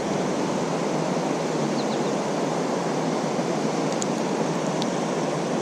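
River rapids and a waterfall rushing steadily.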